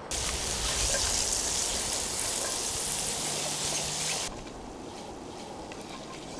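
Food sizzling in a hot pan, a loud, even hiss that starts suddenly and cuts off after about four seconds.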